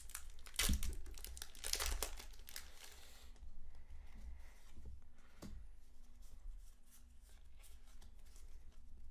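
Foil Pokémon TCG booster pack being torn open, the wrapper crinkling for about the first three seconds; after that, quieter scattered rustles and ticks as the pack is handled.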